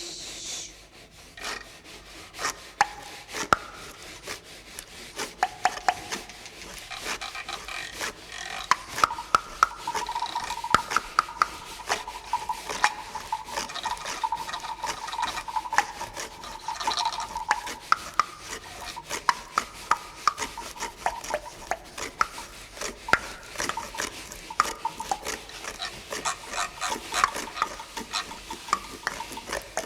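Carpenter's hand plane (cepillo) shaving wood, a rubbing, rasping scrape repeated stroke after stroke, with many sharp wooden clicks and knocks throughout.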